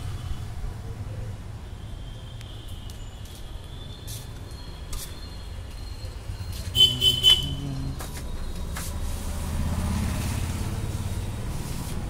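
Steady low rumble of street traffic, swelling louder near the end, with three short loud beeps close together about seven seconds in.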